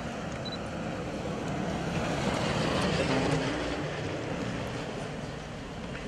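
Cars and jeeps of a motorcade driving past, their engine and tyre noise swelling to a peak about three seconds in and then easing off.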